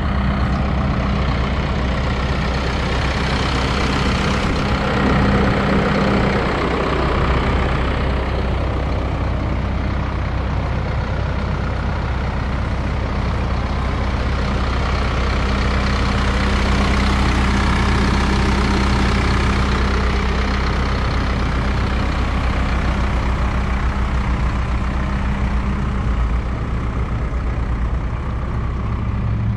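Diesel engine of a 2020 Hino 155 truck (Hino J05, an inline four-cylinder turbo-diesel) idling steadily.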